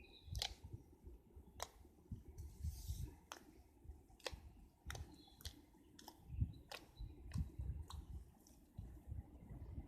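Slime being poked with fingers, giving sharp, irregular clicks and pops, about one a second, over soft squishy thuds.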